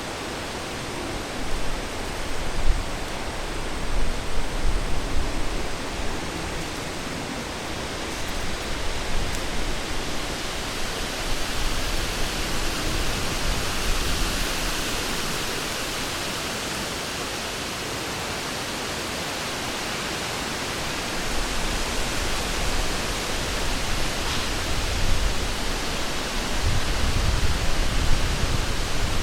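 Wind blowing through forest trees, a steady rushing hiss that swells and eases in gusts, with low buffeting rumbles in the stronger gusts near the start and near the end.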